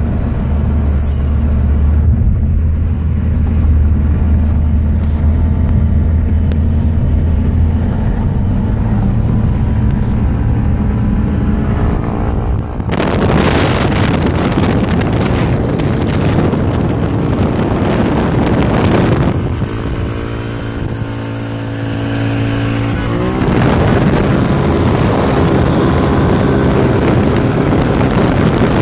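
Steady low road and engine hum inside a moving car. About thirteen seconds in it gives way abruptly to loud wind rushing through an open car window, with an engine drone showing through the wind for a few seconds.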